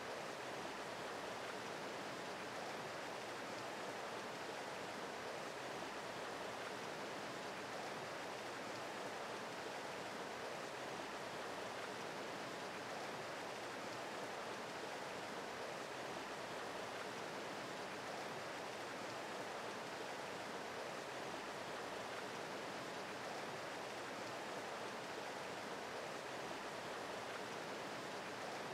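Creek water rushing steadily over the streambed, an even hiss with no breaks.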